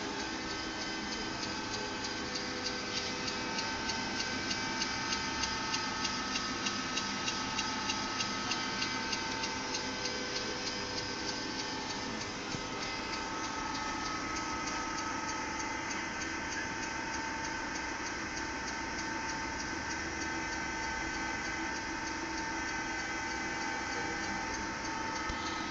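Brakes squealing: a steady high squeal made of several tones at once, with a regular ticking of about two clicks a second through the first half that then fades out.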